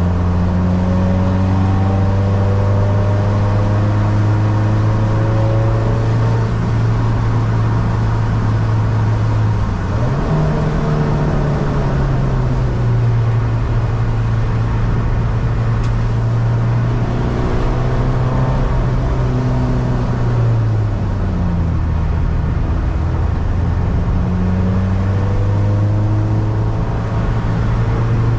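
Tuned 250 bhp diesel SEAT Ibiza engine heard from inside the cabin, driven hard, over steady road and tyre noise. Its note stays strong but steps up and down several times: a sharp jump about ten seconds in, drops a little later and again about two-thirds through, then a climb near the end.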